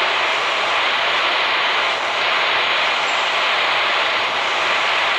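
Handheld gas torch burning with a steady, even hiss. It is heating a rust-seized wheel speed sensor stud on the axle housing to free it.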